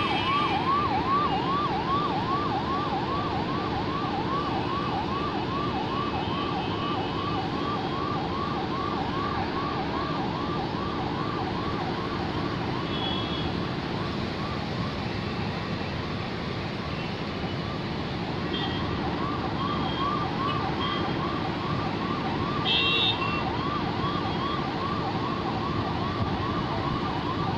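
Ambulance siren in a fast yelp: quick rising sweeps, about two or three a second, over the steady noise of jammed traffic. The siren dips in the middle and comes back stronger near the end.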